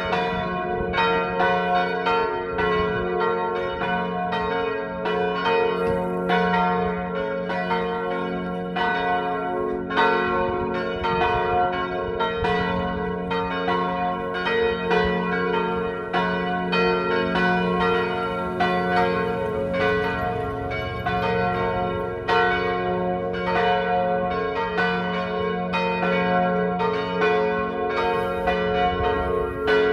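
Church bells tuned to G-flat, B-flat and D-flat swinging in full peal. Their clappers strike in a steady, overlapping stream, while the low hum of each stroke rings on beneath.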